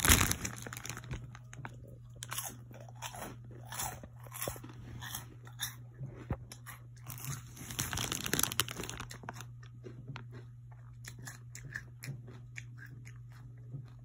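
Close-up crunching and chewing of Flamin' Hot Funyuns onion-flavored rings, in bursts of crisp crackles, loudest right at the start and again about eight seconds in, over a faint steady low hum.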